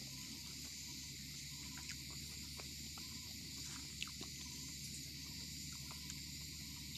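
Faint, scattered clicks and soft mouth sounds of a man eating roti with semolina by hand, tearing the flatbread and chewing. They sit over a steady high-pitched hiss.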